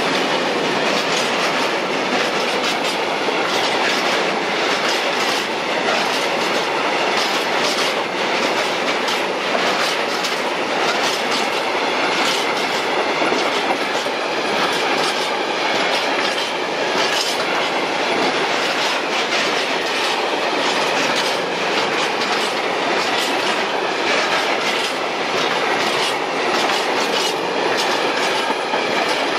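Freight wagons rolling past close by, their wheels clattering steadily over the rail joints with a dense rumble and many quick knocks.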